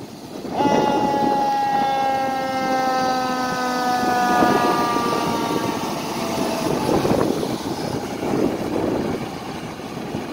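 Fire truck's air horn sounding one long blast of about six seconds, its pitch sagging slightly, over the truck's engine as it pulls past. After the horn stops, the engine and road noise carry on.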